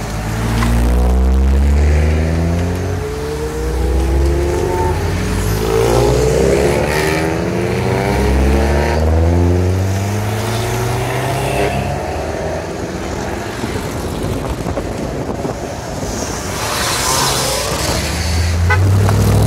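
A line of cars passing one after another, each engine's pitch rising as it accelerates away, with a deep low rumble that swells and fades as each car goes by.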